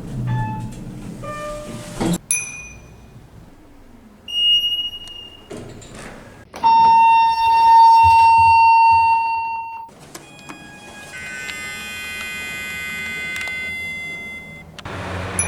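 A run of elevator signals from separate clips: short chime tones and a couple of brief beeps, then a loud steady buzzer tone lasting about three seconds, then several seconds of layered high-pitched tones.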